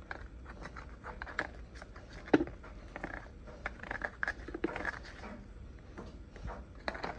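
Red silicone spatula spreading butter over a foil pan of baked cornbread: irregular soft scraping and dabbing strokes, with one sharp tap a little over two seconds in.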